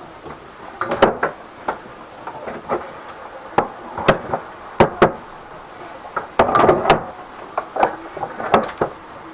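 Irregular knocks and rattles of a corrugated drain-cleaning hose being worked by hand into a kitchen sink's drain pipe, bumping against the pipe and cabinet. There is a short burst of clatter about six and a half seconds in.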